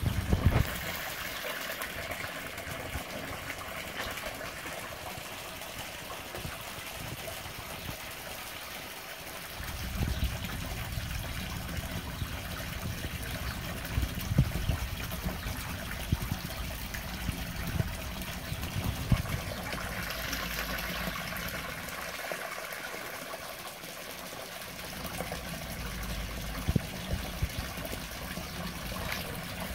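A stream of water from a pond inlet pipe or fountain jet pouring and splashing steadily onto the pond surface. A low rumble comes and goes in the middle and near the end.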